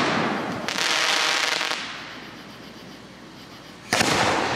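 Aerial fireworks shells bursting overhead, each bang echoing and fading. A second rush of noise comes in under a second in, and another sharp bang comes near the end.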